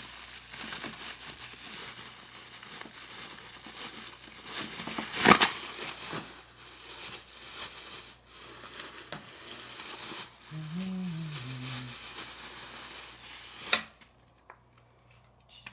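Thin plastic bag crinkling and rustling as it is handled and opened, with a loud sharp snap about five seconds in and another near the end, after which the rustling stops. A brief low hum of a voice comes in between.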